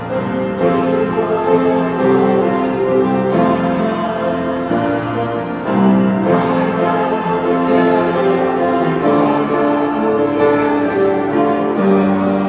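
Hymn music with held chords under a slow melody, passing from a verse into the refrain about six seconds in.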